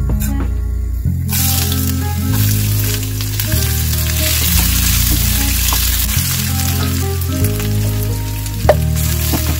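Hot cooking oil sizzling in a frying pan as fenugreek seeds and then sliced onion fry. The sizzle starts about a second in and runs steadily until near the end, with background music and a steady bass line underneath.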